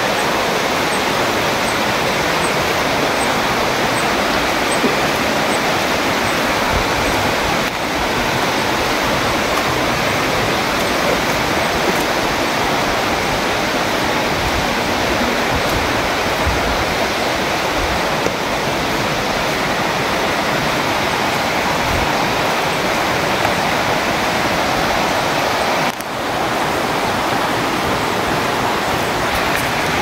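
Falling and rushing water of a waterfall and rocky rainforest creek: a loud, steady, even rush.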